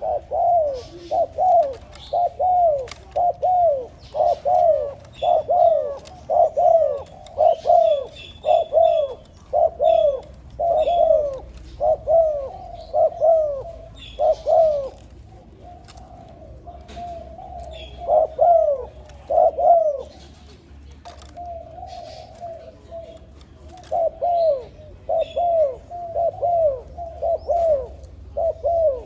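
Spotted dove decoy bird cooing in long runs of short, falling coos, about two a second. It stops briefly about two-thirds of the way through and again a little later, then starts up again. Faint chirps of small birds sound behind it.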